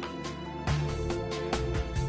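Instrumental background music with a regular beat.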